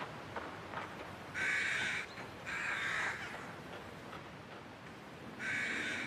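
Crow cawing: two calls of about half a second each, about a second apart, then another call near the end, with a few fainter calls in the first second.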